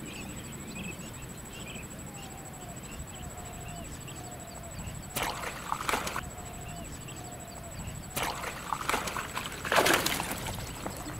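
Water splashing and sloshing in bursts as a hooked fish thrashes at the surface against a bent float rod: a short burst about five seconds in, then a longer run from about eight seconds, loudest near the end.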